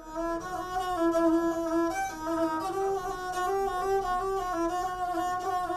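A gusle, the single-string bowed folk fiddle with a skin soundboard, being bowed solo: it starts abruptly and plays a melody that steps up and down among a few close notes.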